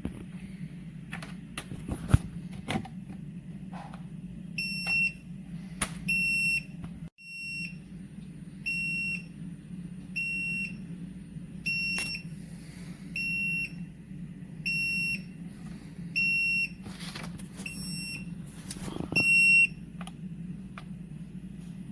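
Electronic beeper sounding about a dozen short, identical high-pitched beeps, roughly one every second and a half, over a steady low hum. A few sharp clicks and knocks of handling fall in between, the loudest about two seconds in.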